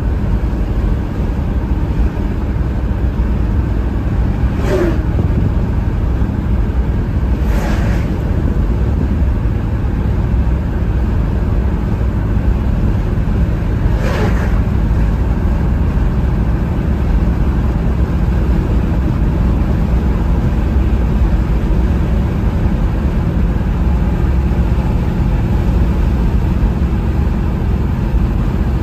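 Car driving along the road: a steady low rumble of engine and road noise, with three short whooshes about five, eight and fourteen seconds in.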